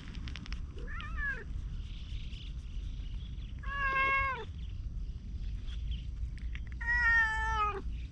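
Orange tabby cat meowing three times while being petted: a short faint meow about a second in, then two longer, louder meows around four and seven seconds in, the last the loudest and dropping slightly in pitch.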